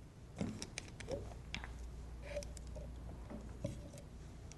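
A dozen or so faint clicks and light taps from plastic lab bottles, a cap and a thin plastic pipet being handled on a bench top while ethanol is measured out.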